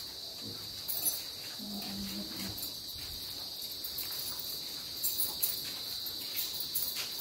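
A steady, high-pitched insect chorus, with faint scattered clicks.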